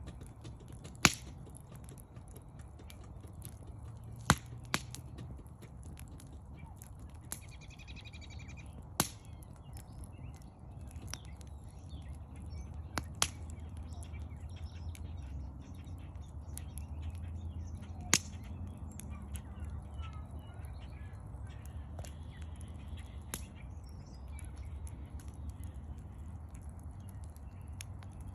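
Wood fire in a fire pit crackling, with sharp pops every few seconds over a low, steady rumble. A bird gives a short call about eight seconds in, and faint bird chirps come later.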